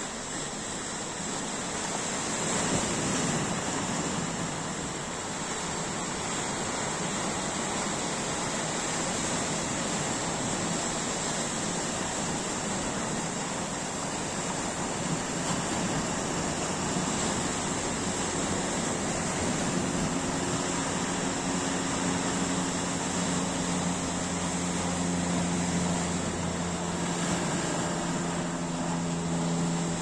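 Sea waves washing in and splashing against a rocky shore in a steady rush. About halfway through, the steady hum of an engine joins in beneath it and grows louder toward the end.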